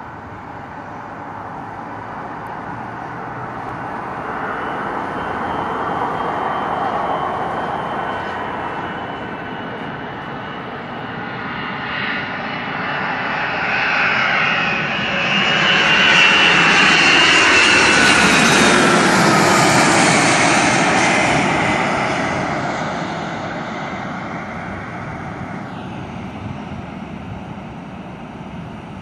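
Boeing 757-200 freighter's twin jet engines on landing approach, growing steadily louder as the airliner passes low. At the loudest, about two-thirds of the way in, the engine whine falls in pitch as it goes by, then the sound fades away.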